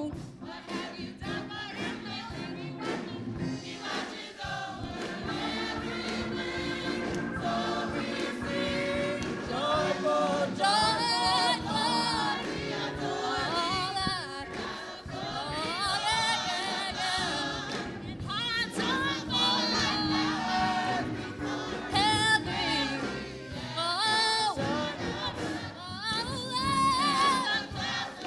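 Youth gospel choir singing, with sliding, wavering vocal lines over sustained lower parts.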